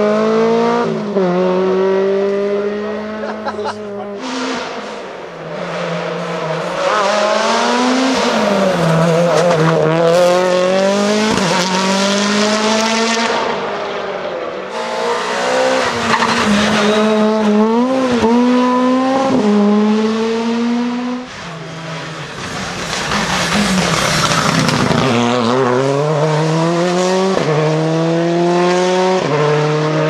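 Rally cars passing one after another at full throttle, each engine revving hard up through the gears with quick upshifts, the pitch climbing and breaking again and again. Tyre noise rises from the road as they go by.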